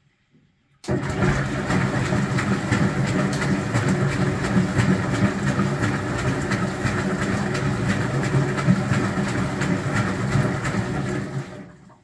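A 1977 Otsein DL-104 washing machine's motor switches on about a second in and turns the drum steadily, a low hum with a fine metallic rattle, then cuts out and winds down quickly near the end.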